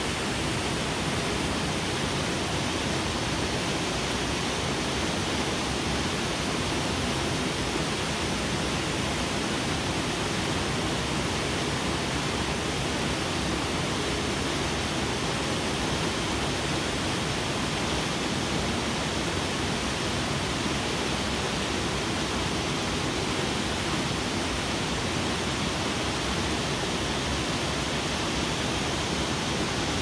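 Steady rush of a roughly 25-foot waterfall pouring over rocks into the pool below, an even noise that never changes.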